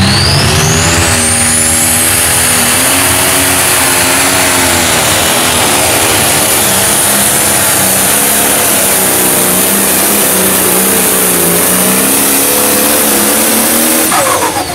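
A Minneapolis-Moline pro stock pulling tractor's turbocharged diesel engine runs at full throttle while it drags a weight-transfer sled. A high turbo whine climbs over the first two seconds and then holds above the steady engine note. Near the end the engine drops off as the pull ends.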